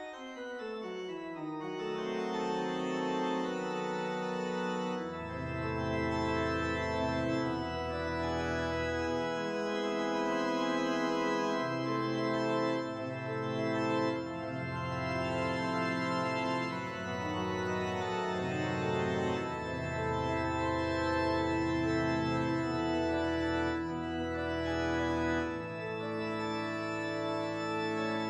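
Organ music: held chords that change every second or so over low bass notes, which come in about five seconds in and drop in and out.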